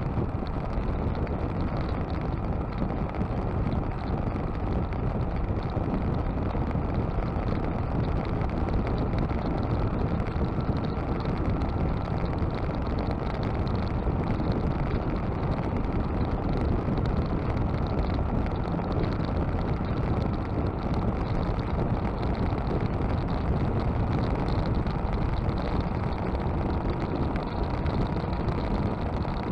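Motorcycle cruising at steady highway speed: a constant rush of wind and road noise mixed with the engine, unchanging throughout.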